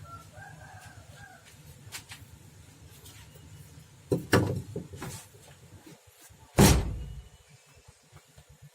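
Metal parts and tools being handled during removal of a steering gearbox: a quick cluster of clanks, then one heavy metallic thud with a short ring about two-thirds of the way through. A rooster crows faintly at the start.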